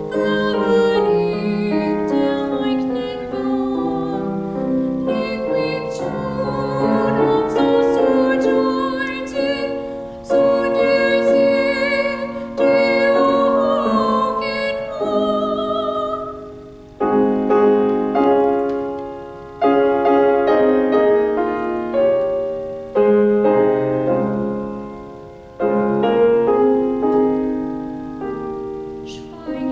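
A woman singing classical art song with grand piano accompaniment. In the second half the piano strikes chords every few seconds that ring and fade.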